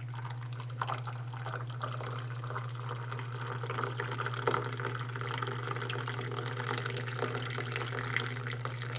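Brewed coffee pouring in a steady stream from a glass French press into a cup, a continuous splashing trickle.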